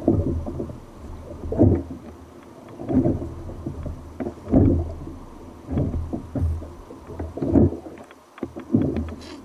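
Sea water slapping and sloshing against a fishing kayak's hull in a regular rhythm, about once every second and a half, with a few faint clicks near the end.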